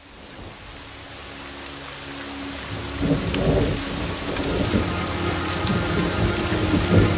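Steady rain with thunder, fading in from silence and growing louder, with deep rumbles from about three seconds in and a few faint held tones beneath.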